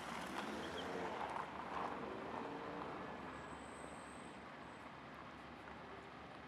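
Street ambience: a steady rush of passing traffic that slowly grows quieter.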